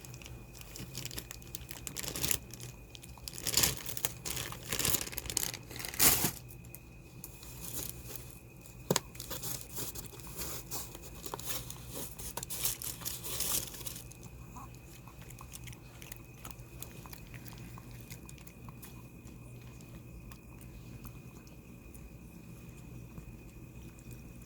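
A dog eating: chewing and crunching with sharp clicks, busiest and loudest in the first half and quieter after about fourteen seconds. A faint steady high tone runs underneath.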